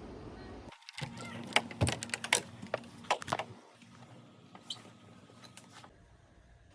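Steady outdoor background noise, then after an abrupt change a quick run of sharp clicks and knocks that thins out, with a few scattered ones afterwards.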